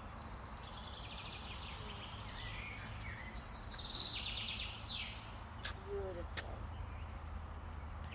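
Songbirds singing, with fast trills and short chirps, over a steady low rumble. Two sharp clicks come a little past the middle.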